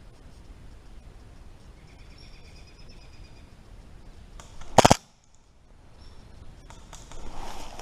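A single sharp, very loud crack from an airsoft pistol firing close by, a rapid shot or short burst lasting a fraction of a second, about two-thirds of the way in. Faint bird chirps come before it, and rustling movement starts near the end.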